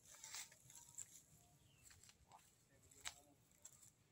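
Near silence: faint outdoor ambience with a few soft clicks and rustles.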